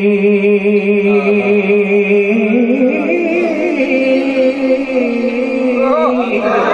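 A male naat reciter sings into a microphone in Urdu devotional style. He holds one long steady note, then about two seconds in moves into a higher, wavering melismatic run that breaks into quick turns near the end.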